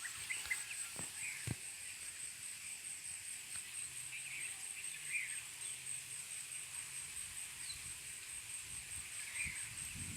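Outdoor ambience of a steady, high, pulsing insect trill with intermittent short bird chirps, and a couple of faint knocks.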